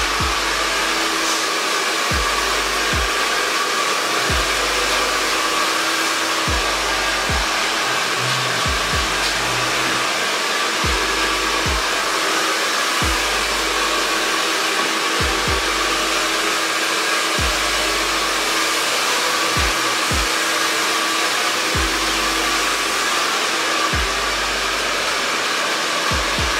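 Handheld hair dryer running steadily, a constant rush of blown air with a thin steady hum.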